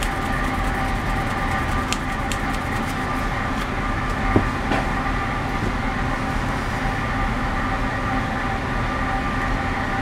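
Small bench belt sander's electric motor and belt running steadily with no work against it. A few light clicks come between about two and five seconds in.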